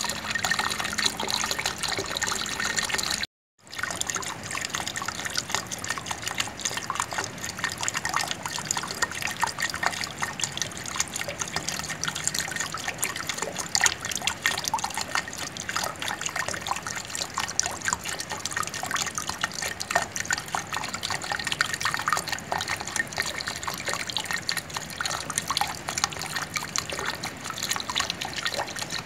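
Water flowing and trickling steadily with a dense patter of small splashes and drips. The sound drops out completely for a moment about three seconds in, then resumes.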